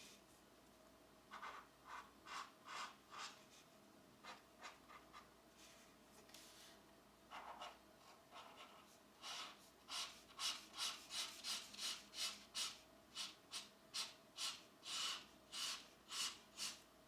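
Pencil strokes scratching across a coloring book page. They are sparse and uneven at first, then from about nine seconds in they turn to quicker, louder back-and-forth shading at about three strokes a second.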